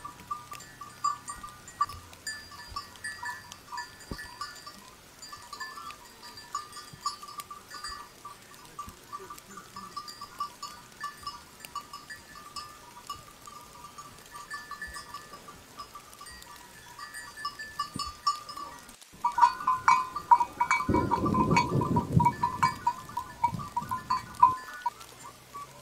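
Cattle in a pasture: a bell on a cow's collar rings on and off with a wavering tone. Near the end, a cow moos once, low and loud, for about three seconds.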